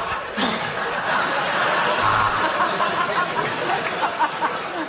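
Studio audience laughing, a dense wash of laughter that thins out near the end.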